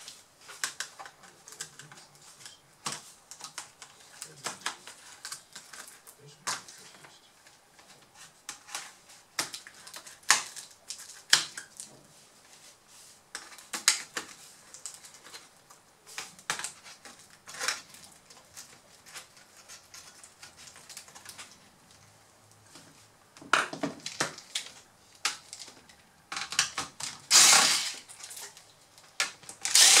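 Irregular sharp clicks and taps of plastic and metal as a Dell Inspiron 1545 laptop is taken apart by hand, with a screwdriver and fingers working the case and its parts. Near the end comes a louder scraping noise lasting about a second.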